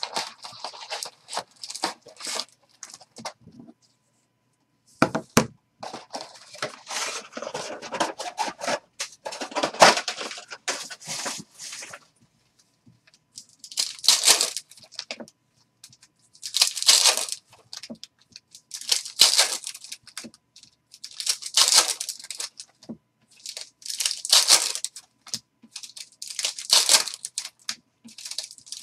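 Foil trading-card pack wrappers crinkling as packs are handled and pulled from the box, with a single thump about five seconds in. From the middle onward the packs are torn open one after another, a sharp rip about every two and a half seconds.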